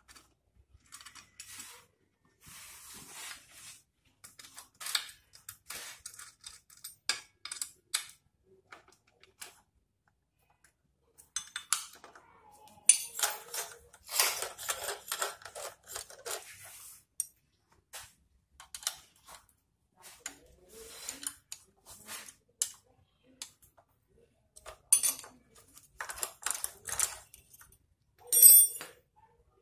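Metal clinks, taps and scrapes of a Tianhong servo sewing-machine motor's aluminium housing, bracket and hardware being handled and fitted together by hand, in scattered bursts with a short pause about ten seconds in and a loud clatter near the end.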